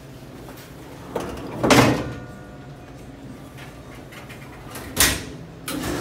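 Stainless-steel commercial door-type dishwasher being loaded and shut over a steady machine hum: a long metal slide about two seconds in, a sharp metal clank about five seconds in, and the machine starting its wash just before the end.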